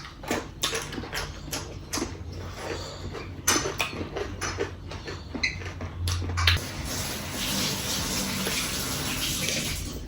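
Light clicks and clinks of dishes and cutlery for the first six seconds or so, then water running steadily for the last few seconds.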